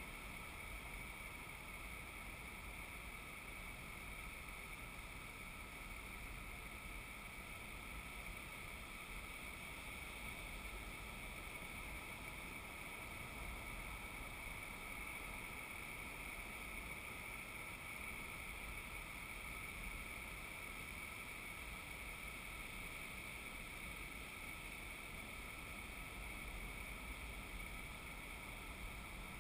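Faint, steady outdoor noise of wind and distant surf, unchanging throughout.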